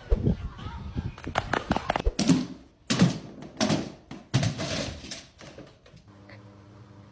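A dog's paws knocking and thudding on a hardwood hallway floor as it runs, a quick irregular run of knocks and thumps that stops about six seconds in, leaving a faint steady hum.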